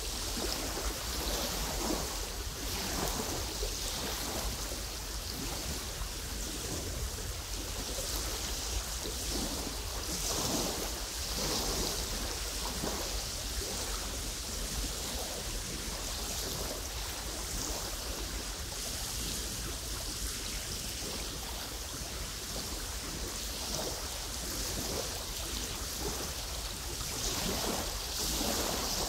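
Gusty wind over a lake, with small waves lapping and splashing close by and plants rustling. The wind swells and eases, loudest about ten seconds in and again near the end, with a low rumble of wind on the microphone underneath.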